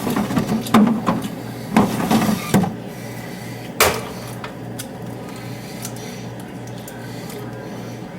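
A run of knocks and clatter like things being handled and set down, ending in one sharp knock about four seconds in, over a steady low hum that carries on alone afterwards.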